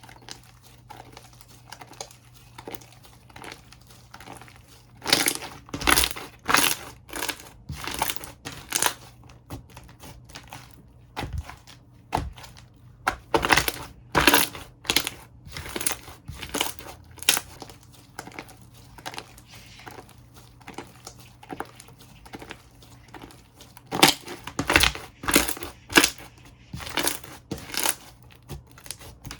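Slime being squished and pressed by hand, giving clusters of crackling pops and clicks with quieter squishing between them.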